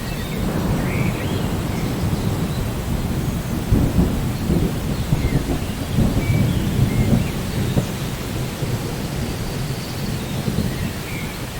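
Rain falling steadily under a low rolling thunder rumble that swells in the middle and eases off toward the end.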